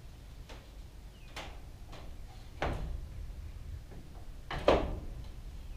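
A few separate knocks and clunks of objects being handled and set down, about four in all, the loudest near the end.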